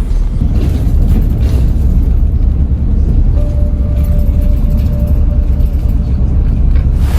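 Steady low rumble of a moving vehicle heard from inside, the road and engine noise filling the low end. A faint brief tone sounds about halfway through.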